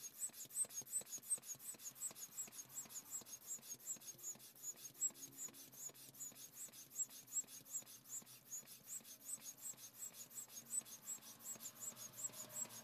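Handheld piston air pump worked in quick, even strokes, each one a faint rasping puff of air, pumping up an inflatable airbed.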